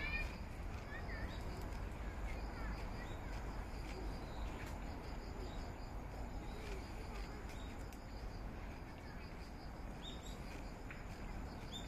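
Outdoor ambience: a steady low rumble under a faint, even high insect trill, with faint scattered chirps and a few short, sharper bird chirps near the end.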